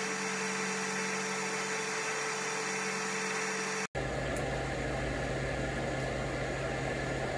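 Steady machine hum with a low drone. About four seconds in it cuts out for an instant and comes back lower-pitched and fuller.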